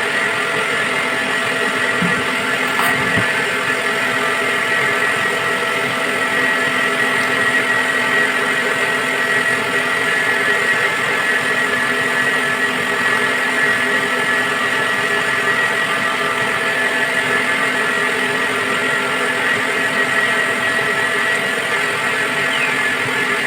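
A motor running steadily, an unchanging hum with a high whine on top.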